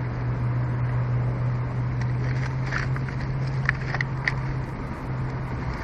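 Steady outdoor ambience: a constant low hum under an even rushing noise. A few short, high chirps come in the middle, about three to four seconds in.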